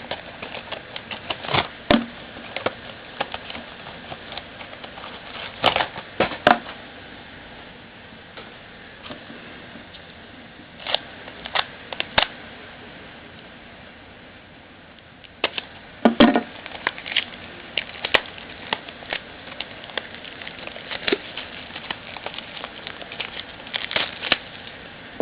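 Packaging being handled and opened on a sealed box of baseball cards: irregular crinkling and rustling with scattered sharper clicks and taps, coming in clusters.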